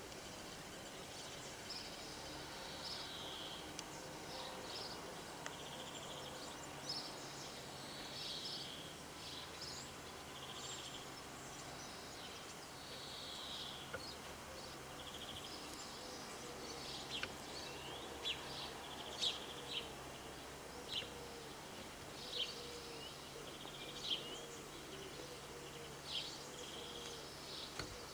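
Small birds chirping and singing outdoors: many short, high calls that grow sharper and louder in the second half, over a faint steady low hum.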